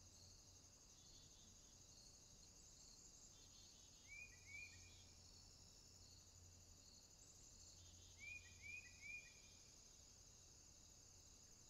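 Faint, steady high-pitched insect chorus. Two short high chirps come about four seconds in and three more about eight seconds in.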